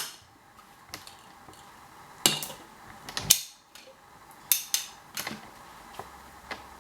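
Wooden toy ice cream scoops and cone being handled and stacked: about ten light clicks and knocks, irregularly spaced, with quieter gaps between.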